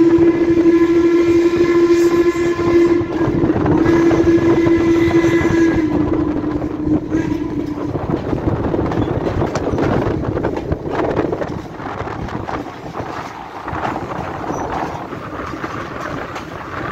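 A locomotive sounding one long, steady blast that sags slightly in pitch and fades out about eight seconds in, followed by the running noise of the passenger train, its wheels rumbling and clicking on the rails.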